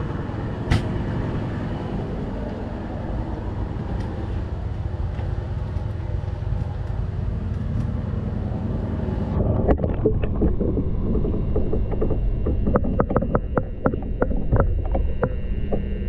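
Outdoor ambience and camera handling noise, then about nine seconds in the sound turns muffled as the camera is plunged underwater, followed by many irregular clicks and knocks of water and bubbles against the camera.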